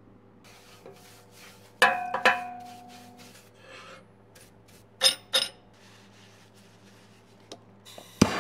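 Metal clanks on a steel sawdust stove as its fittings are handled: two ringing clanks about two seconds in, two sharp knocks around five seconds, then near the end a loud sharp click followed by a brief rush of noise.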